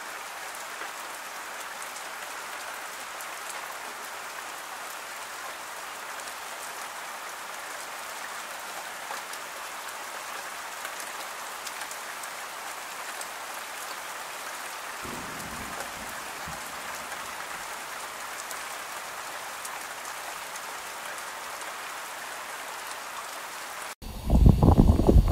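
Steady rain falling, an even hiss without breaks. Near the end it cuts abruptly to louder, gusty wind buffeting the microphone.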